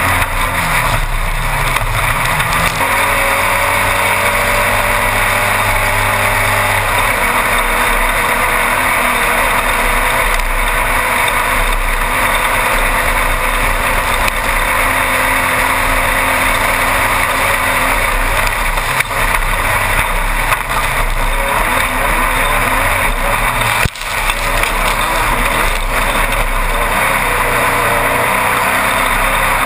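Class 1-1600 off-road race buggy heard from inside the car at racing speed: its 1600 cc air-cooled VW engine runs hard, its pitch shifting up and down with gear changes and throttle, under a loud steady rush of wind and rough-terrain noise. The sound briefly drops out once, a little before the end.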